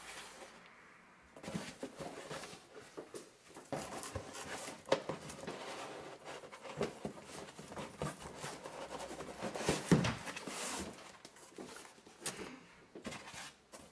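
Small cardboard boxes being handled and set down on a wooden table: scattered knocks and cardboard rustling, the loudest knock about ten seconds in.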